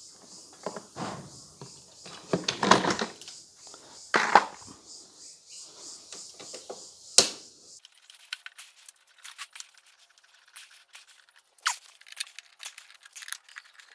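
Knocks, clicks and metallic rattles of hands and tools working on the old dishwasher's parts, with a few louder knocks in the first half, then only faint, quick small clicks.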